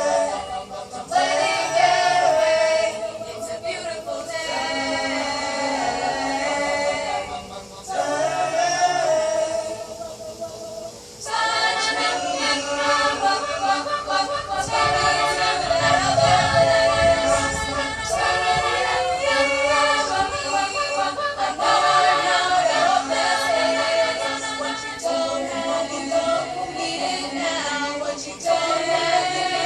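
School choir singing in harmony, a cappella, with short breaks between phrases.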